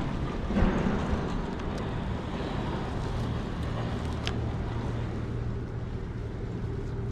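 Bicycle rolling over a packed dirt floor: steady tyre and ride noise with wind on the microphone, and a thump about half a second in.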